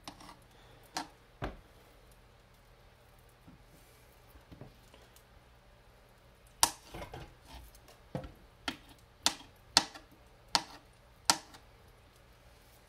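Knife blade knocking on a thin plastic cutting board as pheasant back mushroom pieces are cut and moved about. It goes as sharp single knocks: two early on, then from about six and a half seconds in a run of about seven, roughly one every half second.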